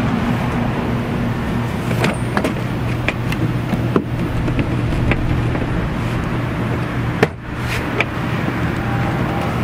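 Steady low mechanical hum with sharp plastic clicks and knocks, about half a dozen, the strongest about seven seconds in: a vehicle's interior door panel being pressed and snapped back onto the door.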